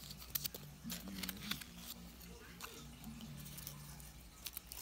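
Cardboard and plastic blister packaging of a toy car crinkling and clicking as it is handled and pulled apart, in scattered short crackles.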